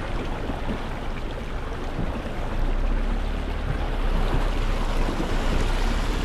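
Jeep driving slowly through water: a low engine rumble under steady rushing and splashing, growing a little louder about two and a half seconds in.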